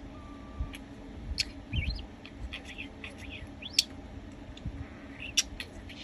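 Budgerigar warbling: an irregular chatter of short chirps and sharp clicks, with a few quick rising squeaks.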